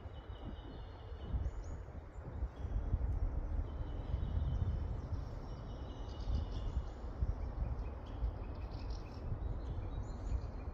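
Forest songbirds singing: short high phrases, repeated again and again, with more than one bird calling. A steady low rumble sits underneath.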